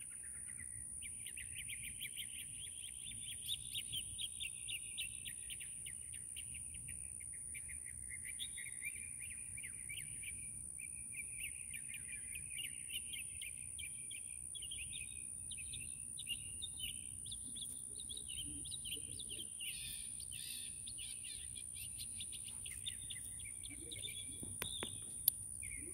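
Birds chirping and twittering without a break, over a steady high-pitched whine.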